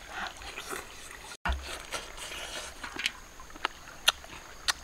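Close-up eating sounds of someone chewing catfish: scattered sharp lip smacks and chewing clicks, roughly one a second, with a brief break in the sound about a second and a half in.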